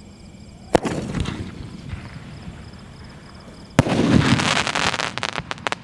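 Coronation sky shot aerial firework going off: a sharp bang about a second in, then a louder bang about three seconds later as a shell bursts, followed by a quick spray of crackles.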